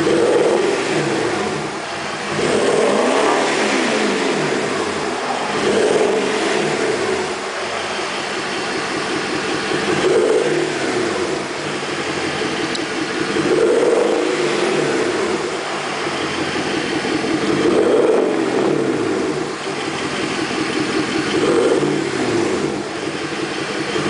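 Mercedes-Benz W221 S320 CDI's V6 diesel engine through an MEC Design aftermarket exhaust, heard at the tailpipes with the car standing still: revved from idle and let fall back about every three to four seconds, some seven blips in all.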